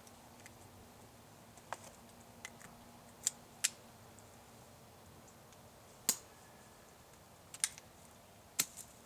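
Goblin Solo paintball/airsoft pistol firing, heard as a series of short, sharp clicks at irregular intervals, a few louder than the rest.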